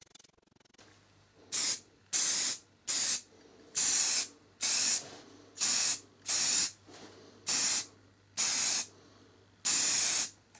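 Aerosol can of satin black spray paint hissing in short bursts, about ten of them roughly a second apart, the last one a little longer, as a coat is sprayed onto a car's wiper arm.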